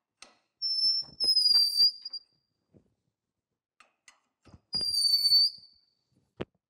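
Morse taper No. 5 hand reamer squeaking twice as it is turned by wrench in the bore: two high squeals about a second long, each falling slightly in pitch at the end, with light clicks and a sharp click near the end. The squeak is the sign of the reamer not yet cutting evenly all the way around the taper.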